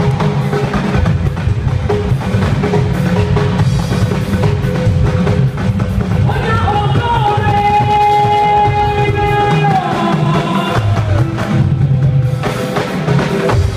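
Music with a drum kit and percussion keeping a steady beat; a held melody line comes in about halfway through.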